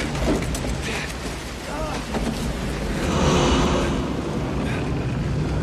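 Movie sound design of a tornado passing close by: dense roaring wind over a deep low rumble, swelling about halfway through.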